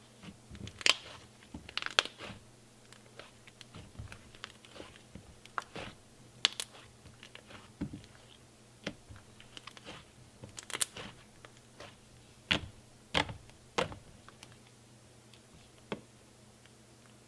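Fluffy cloud cream slime being squished, poked and pressed by hand, giving irregular sticky clicks and pops, loudest about a second in, again near the middle and a few seconds before the end.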